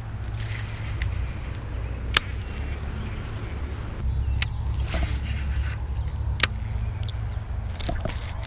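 Wind rumbling low and steady on the microphone, with sharp single clicks about every two seconds.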